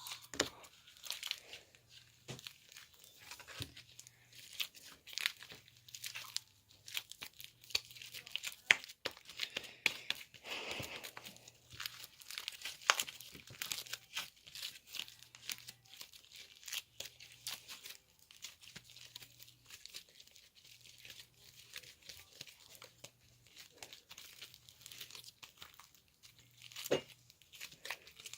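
Slime being kneaded and stretched by hand, with a steady run of irregular sticky crackles, pops and crinkling clicks, heard close up.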